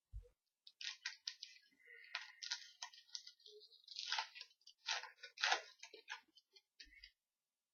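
Trading-card pack wrapper crinkling and tearing open, with cards handled: an irregular run of crackles and rustles, with a dull bump at the start and another near the end.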